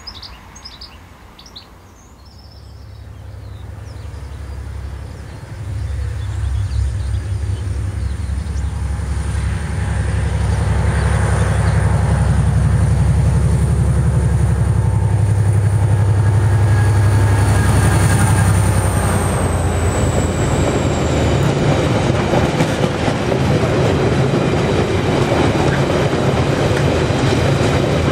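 Irish Rail 071 class diesel locomotive with an EMD two-stroke V12, hauling a freight train. Its engine drone grows from faint to loud as it approaches, and a high whine drops in pitch as the locomotive passes about twenty seconds in. Loaded ore wagons then roll past with a heavy rumble and wheel clatter.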